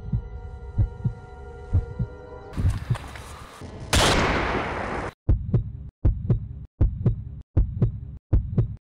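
Heartbeat sound effect, low thumps about once a second, over a held drone chord. About three seconds in, a noise swell rises into a loud whoosh lasting about a second. The thumps then go on in short chopped fragments with silent gaps between them.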